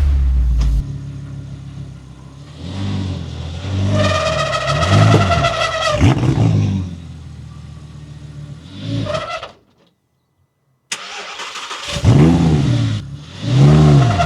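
Audi R8 V10 engine being revved in repeated throttle blips, its pitch rising and falling with each one. The sound cuts out completely for about a second near the middle, then the blips resume.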